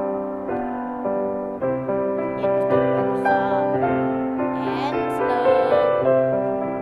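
Background music: a gentle piano-like keyboard melody with chords.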